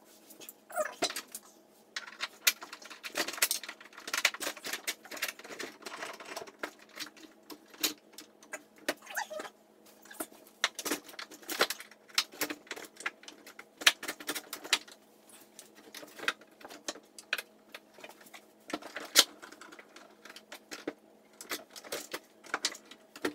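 Metal pipes and pipe-clamp fittings being worked through the holes of a wooden vise jaw and workbench: many irregular clinks, knocks and rattles.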